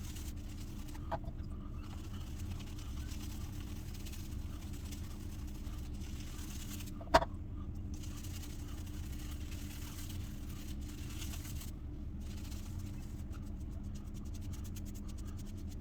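Badger shaving brush working up shaving soap lather, a faint swishing over a steady low hum, with one sharp click about seven seconds in.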